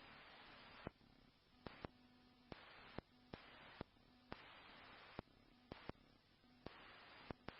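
Near silence on a radio scanner feed between transmissions: faint hiss with scattered faint clicks.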